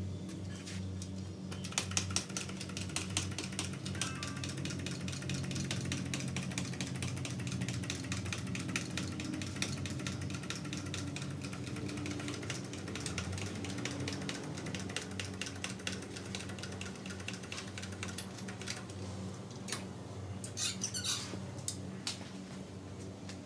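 Abba Sky Lift motorcycle stand being pumped by foot to raise a heavy motorcycle. It gives a rapid, even ticking from about two seconds in until near the end, then a few louder separate clicks, over a steady low hum.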